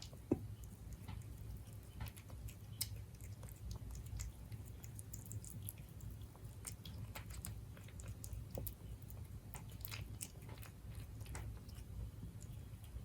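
A Siberian cat chewing and biting its food: a run of irregular, sharp crunching clicks, with a louder click just after the start, over a low steady room hum.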